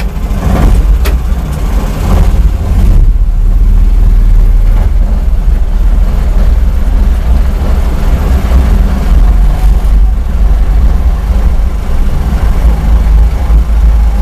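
Vehicle engine running under load as it pulls away in fourth gear and drives on, a loud steady low rumble.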